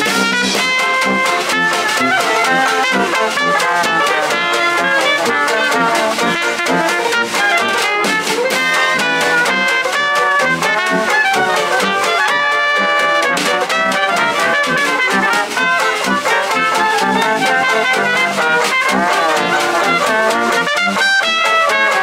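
A small Dixieland jazz band playing live: clarinet, trumpet, trombone and tuba over banjo and snare drum.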